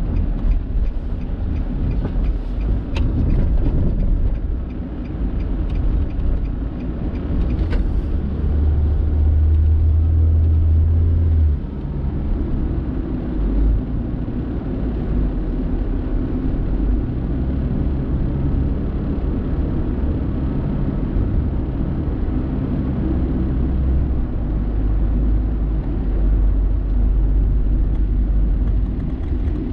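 A car driving on city roads, heard from the car itself: a steady low rumble of engine and road noise that swells for a few seconds about a third of the way in.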